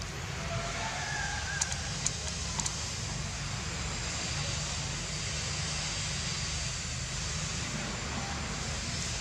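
Steady outdoor background hiss with a low rumble, broken by a few short sharp clicks about one and a half to two and a half seconds in.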